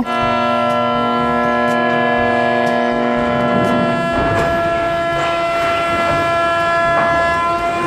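Cargo ship's horn sounding one long, steady blast of several tones at once, the lowest tone dropping out about halfway through.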